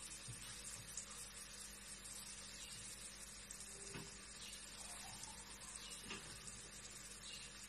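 Faint, steady sizzling of a tomato-and-oil pasta sauce cooking in an aluminium pot.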